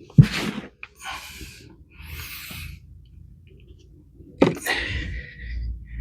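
Hands rummaging through compost in a potato-growing bucket: bursts of rustling and scraping, with a sharp knock just after the start and another about four and a half seconds in.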